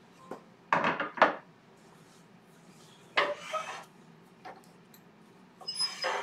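Lathe tool rest and banjo being handled, unlocked and slid along the lathe bed: a few separate metal clunks and scrapes, with a short metallic ring near the end.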